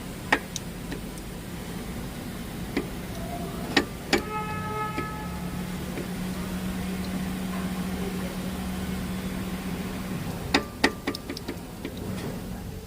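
Scattered metallic clicks and knocks of engine parts being handled, with one ringing metal clink about four seconds in, over a steady low hum.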